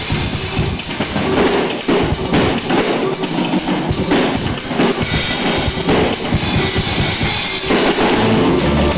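Drum kit played fast and busy, a dense run of strikes. Low bass notes come in near the end.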